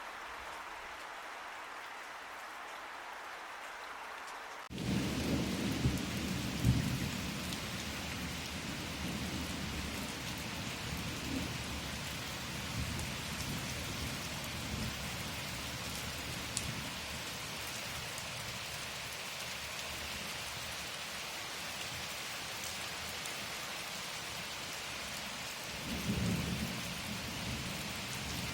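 Steady rainfall hiss that switches abruptly about five seconds in to heavier rain. Low rumbles of thunder swell just after the change and again near the end.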